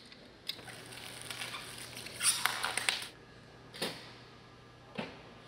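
Metal handling noise as a door operator's motor-gearbox assembly is lifted out of its aluminium header track: a few light clicks and knocks, with a rattling scrape lasting about a second near the middle.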